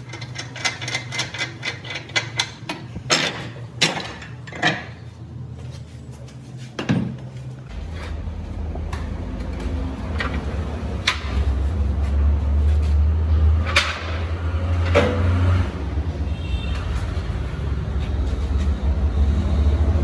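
A run of sharp knocks and clinks, rapid at first and then spaced out, then a low steady hum starting about eight seconds in, with a few more knocks over it.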